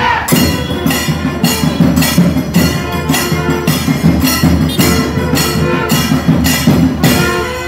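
Loud temple music: a steady beat of percussion strikes, about three a second, over sustained tones. The beat fades near the end.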